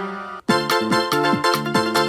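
Background music: one piece ends with a brief gap about half a second in, then an upbeat electronic track with a steady beat starts.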